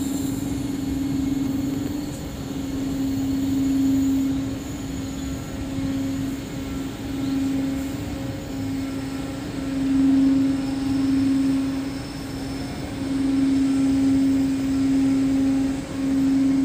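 Steady hum of a tanker ship's deck machinery at one pitch, swelling and fading every second or two, over a rough rushing noise.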